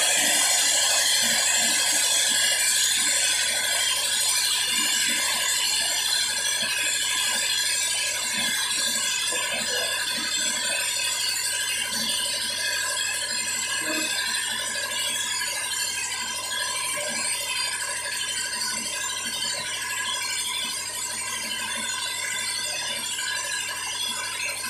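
A marker writing on a whiteboard in scattered strokes, over a steady mechanical noise that runs throughout.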